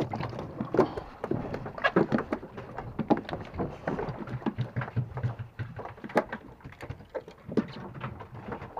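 Scattered light knocks and clicks at irregular times aboard a small fishing boat.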